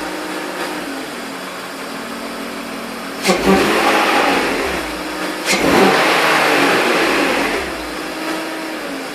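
BMW E46 323Ci's 2.5-litre straight-six idling, then revved twice, at about three and five and a half seconds in. Each blip opens with a sharp click and swells for about two seconds before falling back to idle. The owner hears an odd noise on throttle and cannot tell what it is.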